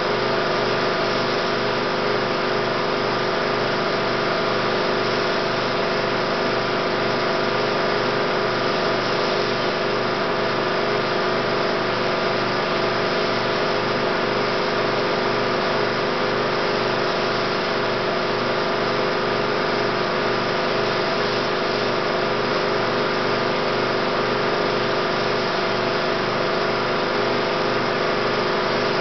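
16mm film projector running, a steady mechanical whir with a fast, even flutter from the film transport that never changes.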